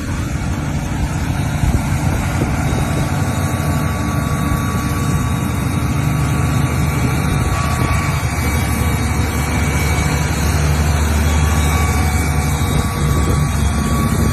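A heavy engine running steadily under load, with a faint steady whine.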